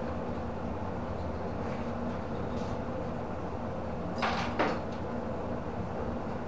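A steady low hum, with two short sharp knocks about four seconds in, half a second apart.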